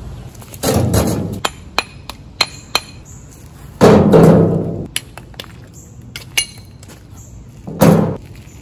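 Loose bricks being tossed into a wheelbarrow: three loud clattering drops, about a second in, around four seconds and near the end, with sharp brick-on-brick clinks between them.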